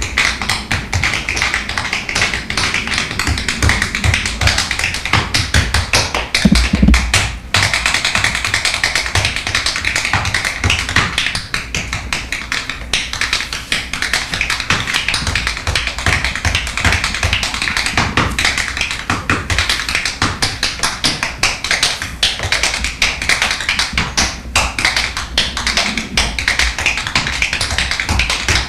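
Tap shoes striking a wooden stage floor in fast, continuous rhythmic footwork: a tap dance. A heavier stamp lands about seven seconds in.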